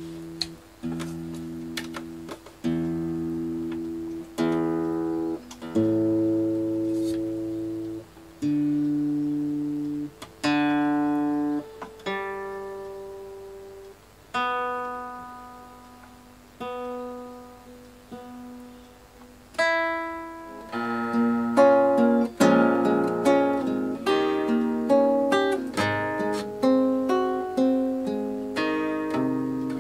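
Acoustic guitar playing: slow chords left to ring out, then a busier passage of quickly picked notes from about twenty seconds in.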